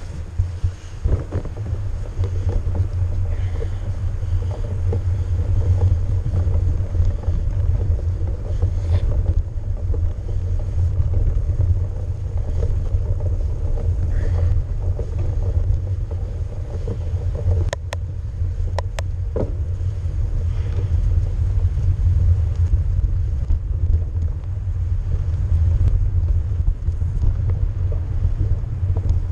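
Wind buffeting an action camera's microphone while a mountain bike rides a snowy dirt trail: a steady low rumble with tyre and bike rattle, and a few sharp clicks about two-thirds of the way through.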